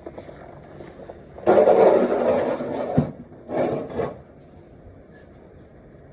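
Snow shovel scraping and pushing through snow in two strokes: a long one of about a second and a half, then a shorter one.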